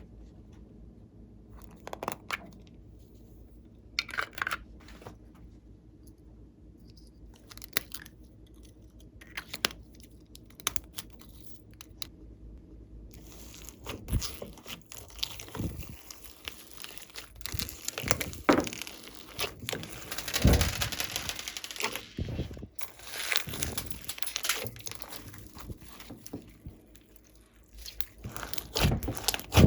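Glossy slime being kneaded and stretched by hand, giving scattered crackles and pops that grow denser and louder about halfway through.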